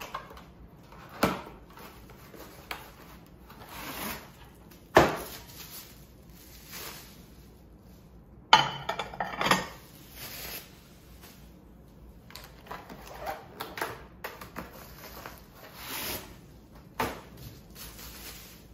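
Cardboard gift boxes and ceramic dinner plates being handled on a table: scattered knocks, scrapes and rustles, the loudest knocks about one, five and eight and a half seconds in. A faint steady air-conditioner noise runs underneath.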